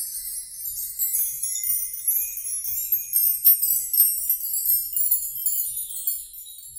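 Continuous high tinkling jingle of many small metal pieces or bells, with two sharp clicks about three and a half and four seconds in.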